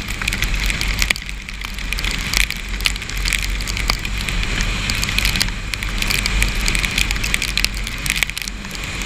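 Heavy rain pattering, with dense sharp drop clicks hitting close to the microphone over a steady low rumble.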